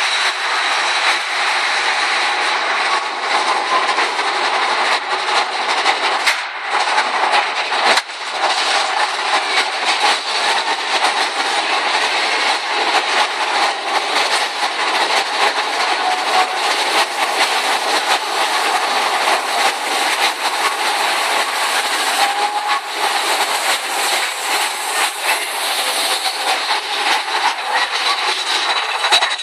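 Mine-train roller coaster cars running along the track, a steady loud rattle and clatter of wheels and rapid clicks, heard from a seat in the train.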